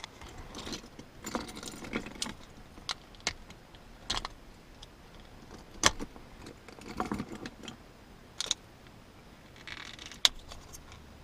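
Handling noise from a key fob and its keys: scattered sharp clicks and taps, short bits of light metallic jingling, and brief rustles.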